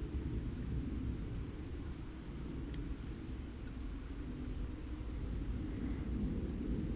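Insects trilling steadily in the woods, a thin high-pitched chirring that fades somewhat after about four seconds, over a low rumble.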